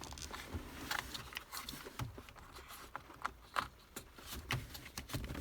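Light scattered clicks and rattles of a plastic dashboard switch panel and its wiring plug being handled, with a sharper click about three and a half seconds in.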